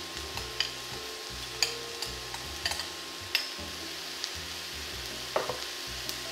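Onions and green lentils sizzling in a stainless steel sauté pan, with a few sharp clinks of a metal spoon against the pan and bowl as the lentils are scraped in and stirred.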